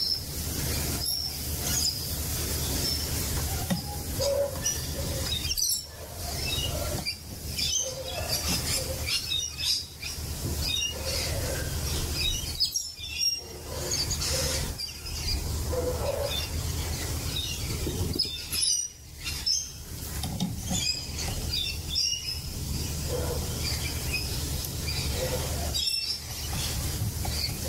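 Rainbow lorikeets and galahs calling in many short, high chirps and screeches, over a steady low rumble.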